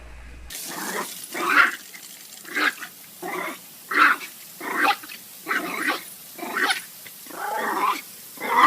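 A dog making a quick series of about a dozen short, pitched vocal calls, one every half second or so, starting about half a second in.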